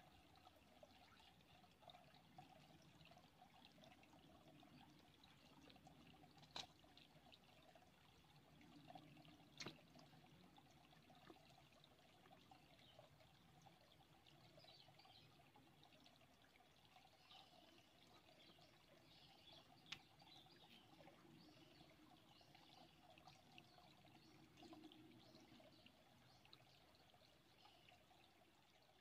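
Faint, steady trickle of a small shallow stream running and falling over stones, with three short sharp clicks spread through it.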